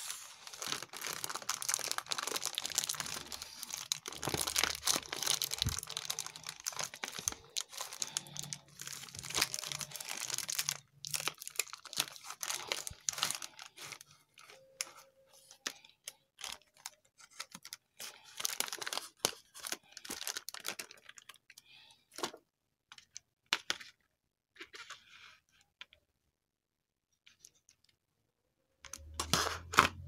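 Plastic courier mailer bag being torn open and crinkled: a dense stretch of tearing and crackling for about the first fourteen seconds. After that come scattered crinkles and clicks as the plastic blister pack is handled.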